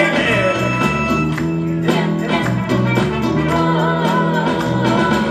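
Gospel band backing music playing an instrumental lead-in to the next song of the medley, with a steady beat and no lead vocal.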